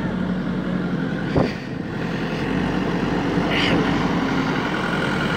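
JCB backhoe loader's diesel engine running steadily as the machine drives, carrying a concrete pipe in its front bucket. There is a single sharp knock about a second and a half in.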